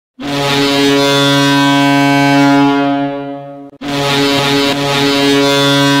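Ice hockey arena goal horn, the signal that a goal has been scored, sounding two long steady blasts. The first fades away after about three and a half seconds, and the second starts right after and is still sounding at the end.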